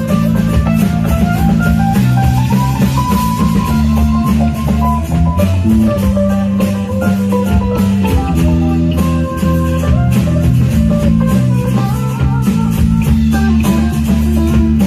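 Live band playing an instrumental passage without singing: a guitar melody line moves over strummed guitar chords, with bass and drums underneath.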